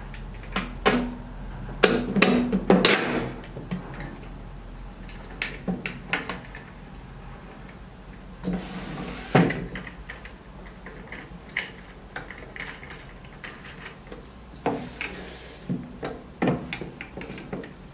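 Metal clicks and knocks from an MK200 T-handle vending-machine lock as its handle and spindle are pushed straight in through the three-part locking nut. There are two longer scraping sounds, one about halfway through and one near the end.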